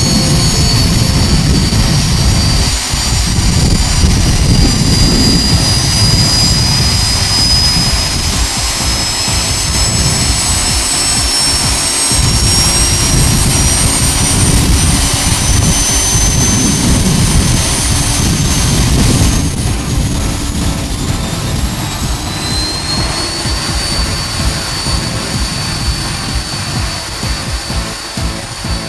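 Handley Page Victor K2's Rolls-Royce Conway jet engines running in a loud ground engine run: a deep roar under high whining tones that slowly rise in pitch. About two-thirds of the way through the whine drops away, and a new one climbs shortly after.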